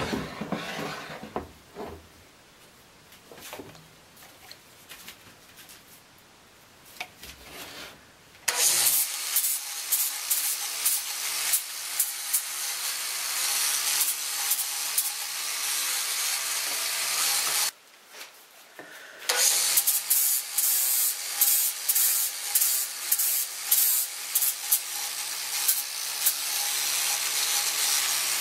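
A few light clicks and knocks of bar clamps being handled, then about a third of the way in an angle grinder with an abrasive disc starts and grinds the corner of a weathered fence-post frame, a steady motor hum under a loud scraping of wood. It stops briefly about two-thirds in, then starts again, the grinding rising and falling in short passes.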